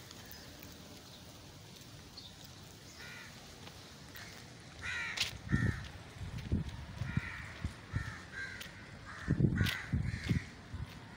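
Crows cawing, a run of short harsh calls that starts about three seconds in and comes thick and fast through the second half, over a few low thumps.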